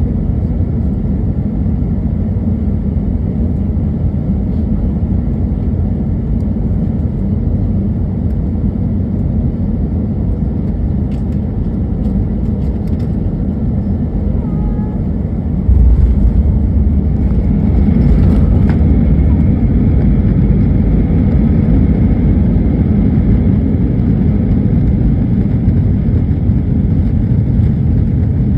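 Airliner cabin noise on a landing: a steady loud rumble of engines and airflow, then a sudden jump to a heavier, louder rumble about halfway through as the wheels touch down and the plane rolls along the runway.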